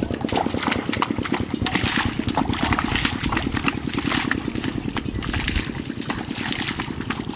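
A small motor running steadily with a fast, even pulse, under water churning and splashing at the surface of a muddy pond.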